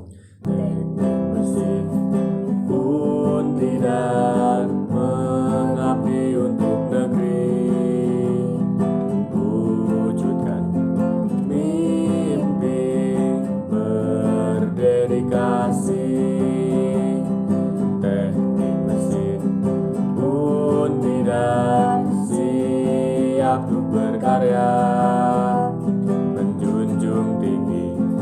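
Acoustic guitar strummed as accompaniment to a voice singing a song in Indonesian.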